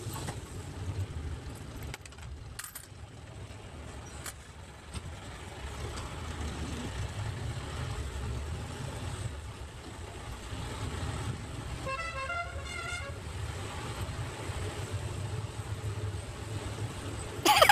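Diesel jeepney engine running with a steady low rumble, heard from inside the passenger cabin. A vehicle horn sounds for about a second near the two-thirds mark, and a brief loud burst comes right at the end.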